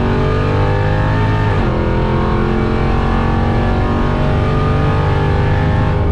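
Cammed, ProCharged 5.7 Hemi V8 idling steadily, with a slight drop in pitch about one and a half seconds in.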